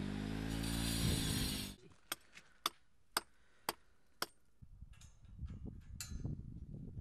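A motor runs with a steady hum whose pitch dips and recovers, then cuts off abruptly about two seconds in. Five sharp, evenly spaced knocks follow, about half a second apart, and then a faint low rumble of wind on the microphone.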